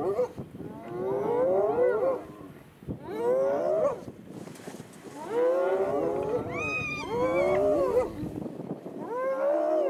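Spotted hyenas calling: about five wavering squeals in quick succession, each sliding up and down in pitch.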